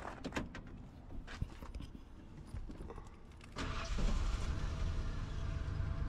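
1995 Ford F-150 engine starting up about three and a half seconds in, after a few light clicks, then running steadily. It starts right up now that the dirty ignition connector behind the no-spark fault has been cleaned.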